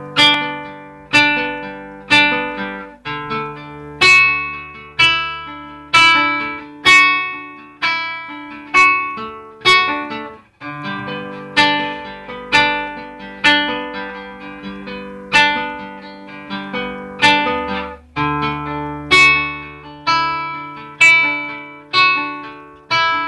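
Nylon-string classical guitar strumming chords, a sharp strum about once a second that rings and decays, under sustained low keyboard notes. The playing breaks off briefly about ten seconds in, then resumes.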